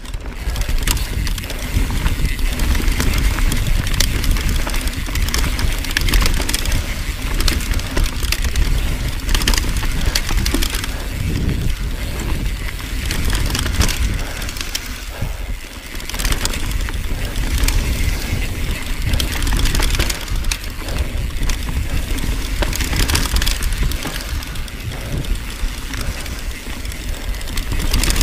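Mountain bike descending a dirt singletrack at speed: tyres rumbling over the trail and roots, with a stream of sharp rattles and knocks from the bike as it is jolted over bumps.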